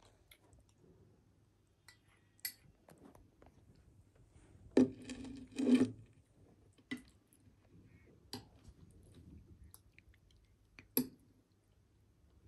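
A metal spoon clinking and scraping against a stemmed glass dessert bowl of curd, with soft eating sounds. There are scattered single clinks, and a louder spell of scraping lasting about a second comes about five seconds in.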